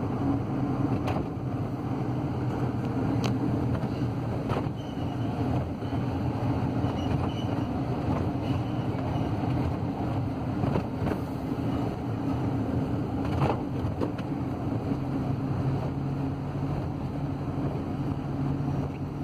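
Cab noise of a Ford Transit diesel van on the move: a steady engine hum with road noise, and a few light clicks now and then.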